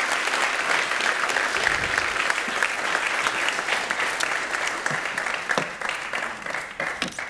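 Audience applauding, dense clapping that thins out and fades near the end.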